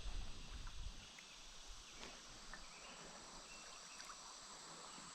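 Faint outdoor ambience of insects buzzing steadily in a high, even drone. A brief low rumble sounds in the first second, and a few faint clicks come through the drone.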